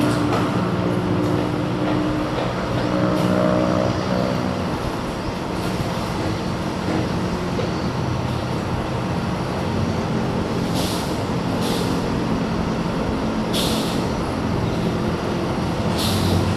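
Steady running of an Airbus A320-216's CFM56 jet engines: a continuous rush with a low hum of several tones. A few short hisses come in the second half.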